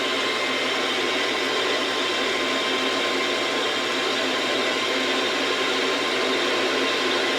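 Metal lathe running steadily: a constant machine noise with a faint even whine, with no change in speed or load.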